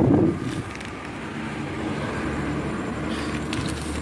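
Steady low rumble of street traffic, with a short loud bump right at the start and a few faint crinkles near the end as a plastic candy bag is handled in a gloved hand.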